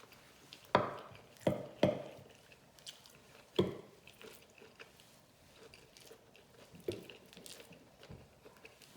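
Close-miked wet chewing and lip-smacking of soft sticky rice and seafood, with several sharp mouth smacks in the first four seconds and one more near the end.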